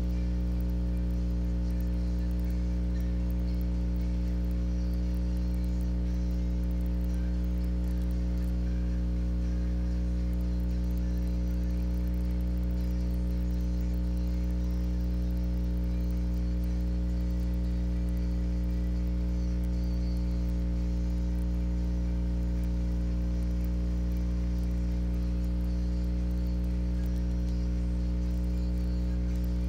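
Steady electrical mains hum with a buzzy edge, a constant low drone with many overtones that does not change.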